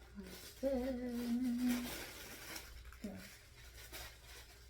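A woman humming a short steady note, held for about a second, over rustling of packaging being handled.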